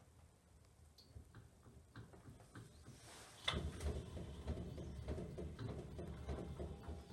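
LG 6.5 kg washing machine, quiet apart from a few faint clicks, starts running again about three and a half seconds in with a low rumble and irregular knocking and clicking.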